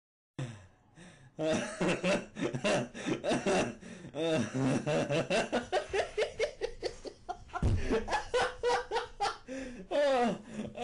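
A person laughing, with short bits of speech mixed in. It starts after a brief gap about half a second in.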